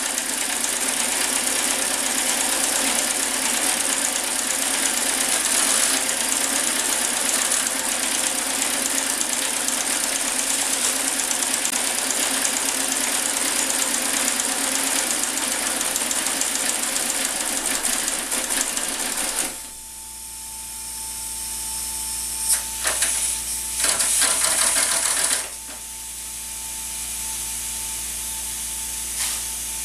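Working model of a Marion 91 steam shovel running: a dense, steady clatter of its gears, chains and drums as it swings and digs gravel. The clatter stops suddenly about twenty seconds in, leaving a quieter steady whine, broken a few seconds later by a short loud burst of noise and then a single click near the end.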